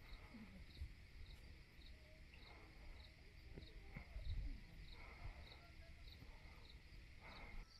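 Faint insects chirping in wet forest: a short high chirp repeating about twice a second over a steady high buzz, with low rumbling underneath.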